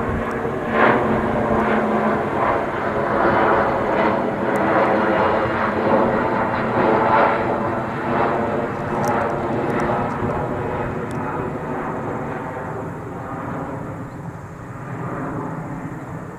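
Boeing 757-200's twin turbofan engines at climb power just after take-off: a loud rumble with a steady drone of engine tones, slowly fading over the second half as the jet climbs away.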